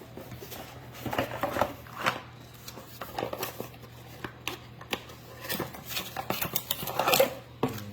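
Handling noise from the power station's accessories and packaging being taken out: scattered rustles and small clicks and knocks, busiest about a second in and again near the end.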